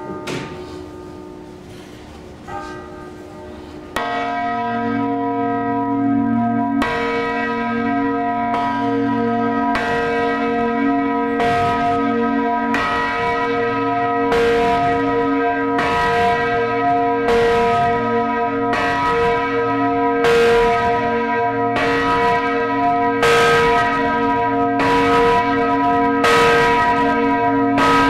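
Large swinging bronze church bells ringing together, among them the 2,835 kg Katarzyna bell tuned to B. A loud first stroke comes about four seconds in; after that the clapper strikes about once a second, and the deep ringing tones carry on and build between the strokes.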